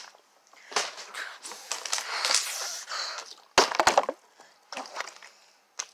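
Partly filled plastic water bottle knocking and clattering on a wooden table in a quick cluster of hits about three and a half seconds in, with soft rustling before it and a single small knock near the end.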